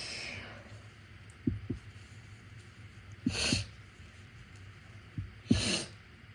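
The tail of a sneeze fading out at the start, then two short, sharp breaths through the nose, one about three and a half seconds in and one about five and a half seconds in, as the person works up another induced sneeze.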